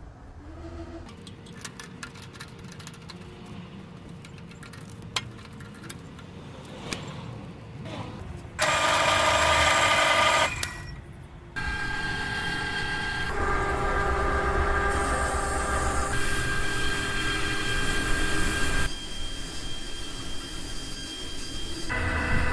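Drill press motor running and spinning a sanding drum in its chuck, a steady mechanical hum with a whine, in several stretches that start and stop abruptly. Before that come a few light clicks and knocks as the drum is fitted into the chuck.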